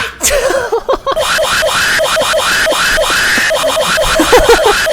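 A short voice-like meme sound effect from a Discord soundboard, played over and over in quick overlapping repeats, several times a second.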